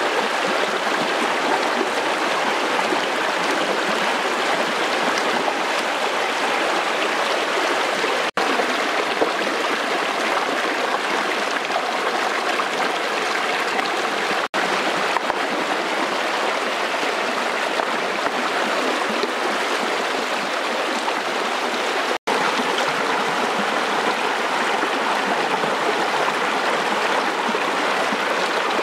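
Shallow, fast stream rushing and splashing over rocks, heard close to the water surface; the steady rush breaks off for an instant three times.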